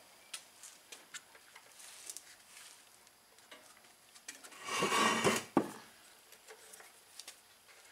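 Hands handling a small engine's parts on a workbench: scattered light metallic clicks and taps, with a louder scraping rustle about five seconds in.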